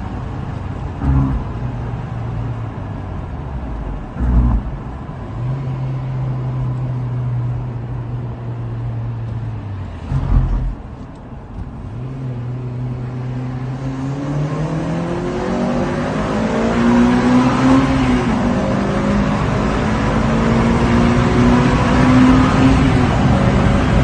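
Honda Civic Type R engine through its stock exhaust, running at low steady revs with a few short blips. About halfway through the revs start climbing steadily and the engine grows louder, holding high revs to the end.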